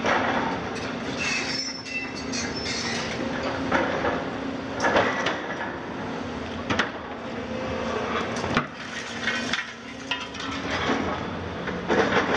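Volvo and Hitachi KMC 400 demolition excavators at work: diesel engines and hydraulics running with a steady drone, overlaid by repeated clanks, scrapes and crunches of concrete rubble and steel as the grapple and crusher handle debris.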